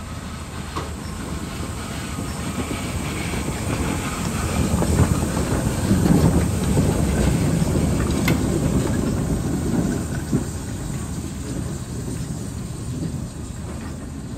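GWR 4575 class 'Small Prairie' 2-6-2 tank steam locomotive 5553 passing close by at slow speed. It grows louder to its nearest point about halfway through, with a sharp click a little after, then fades as it moves away.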